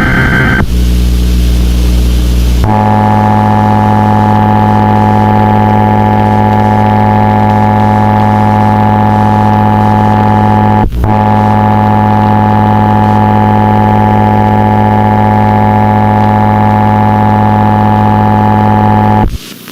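Emergency Alert System attention signal: a loud, harsh, distorted two-tone beep held steadily for about sixteen seconds, with a brief dropout partway through. It follows a couple of seconds of a different buzzing tone and cuts off abruptly near the end.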